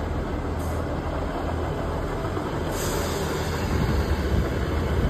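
ScotRail Class 158 diesel multiple unit pulling away from the platform: a steady low engine hum with the rumble of the carriages on the rails, growing slightly louder as it goes.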